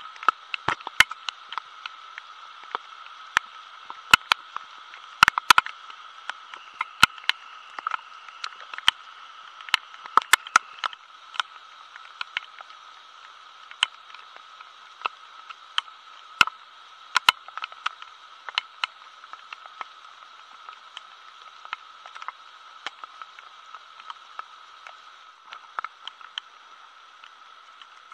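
Steady hiss with irregular sharp ticks, several a second for the first dozen seconds and then sparser: rain dripping and striking leaves and the camera in wet bamboo undergrowth.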